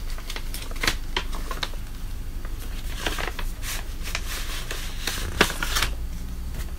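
Paper envelope being opened by hand and a greeting card slid out: a run of crackles and rustles, the loudest a single sharp crack about five and a half seconds in.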